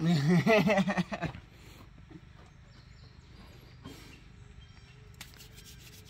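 A short pitched vocal sound during the first second or so, then a faint steady background with a few soft clicks.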